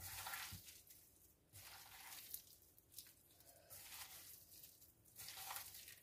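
Faint, soft squishing and crinkling in several short bouts: a gloved hand working raw beef strips through a cornstarch coating in a metal bowl.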